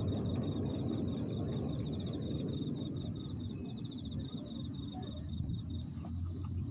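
Crickets chirping in a fast, even, high-pitched pulsing trill that fades out about two-thirds of the way through, over a steady low outdoor rumble, with no firework bangs.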